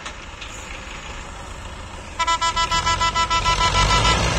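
Belarus tractor diesel engines running under load while pulling a heavy loaded trailer, growing louder from about two seconds in. Over them, a horn sounds in rapid pulses, about six a second, for roughly two seconds.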